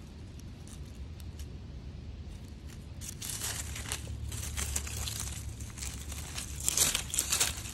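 Dry leaf litter and bark debris rustling and crunching as a hand pushes it around and sets a stick back against a rotting log, starting about three seconds in and loudest near the end, over a steady low rumble.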